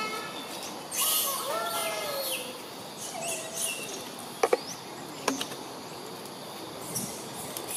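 Short calls that arch up and down in pitch, several in the first half, with a quick pair of sharp clicks about halfway through and another click soon after.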